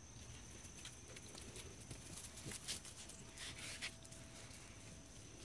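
Quiet yard ambience: a faint steady high-pitched insect trill, with a few soft rustles of footsteps in grass and leaves about halfway through.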